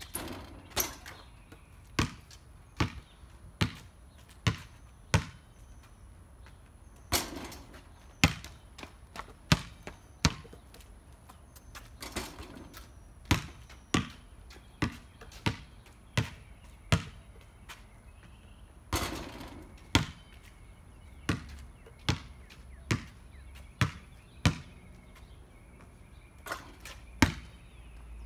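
Basketball bouncing on a concrete court as it is dribbled and shot over and over, sharp bounces about one a second. A few longer, noisier hits are mixed in, and near the start the ball hits the backboard.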